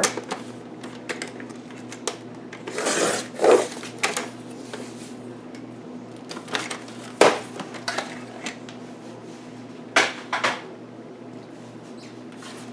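Sliding paper trimmer cutting a strip off a folded paper envelope: a brief rasping swish of the cutter head along the rail about three seconds in, then a few sharp knocks as the paper and trimmer are handled on the wooden table.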